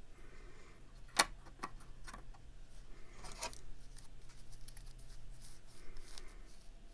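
Small metal knife parts and tools being handled on a work surface: light rubbing and clicks, with one sharp click about a second in.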